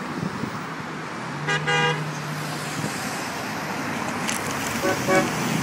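A passing car's horn honks once for about half a second over steady road traffic noise, and a short double toot sounds near the end.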